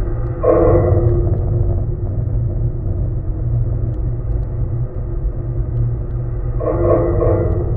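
Steel handrail of the Humber Bridge footbridge vibrating in high wind, picked up through a contact microphone: a steady low rumble with a few constant humming tones above it. Two brief louder swells rise out of it, one about half a second in and one near the end.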